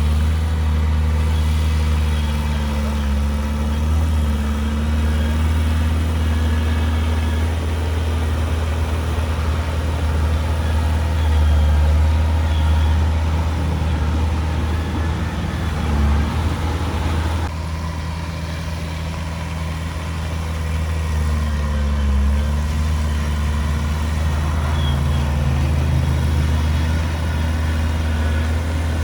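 Komatsu D31P bulldozer's diesel engine running steadily, a deep hum with a pitch that shifts a little as the load changes. About seventeen seconds in, the sound changes abruptly and turns slightly quieter.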